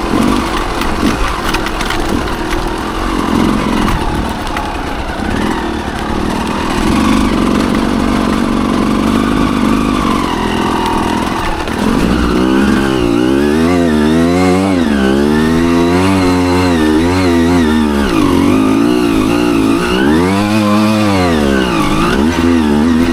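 Dirt bike engine under load on a hill climb. The first half sounds rougher and noisier. From about halfway the revs rise and fall again and again as the throttle is opened and closed.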